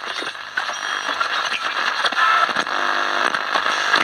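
Medium-wave AM transistor radio's loudspeaker hissing and crackling with static between stations, with a brief humming tone coming through past the middle. The radio's AGC now seems to work after the demodulator diode was found mounted the wrong way round.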